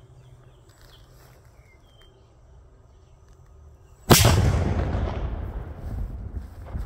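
A large firecracker (Polenböller) going off about four seconds in: one sharp, very loud bang followed by a rumbling echo that dies away over the next few seconds.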